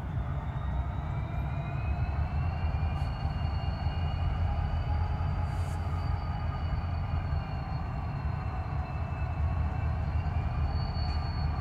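Parked diesel-electric locomotives idling: a steady low rumble, with a faint high whine that drifts slightly in pitch.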